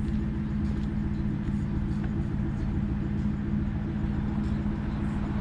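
1999 Ford Crown Victoria's 4.6-litre V8 idling steadily through aftermarket Flowmaster mufflers with a low rumble. It is warming up after a cold start, and the cold-start high idle is not kicking in.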